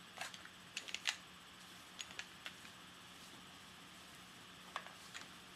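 Glock pistol being handled, giving a scattered series of light, sharp mechanical clicks, the loudest about a second in, as it is checked empty and reloaded with a dummy round.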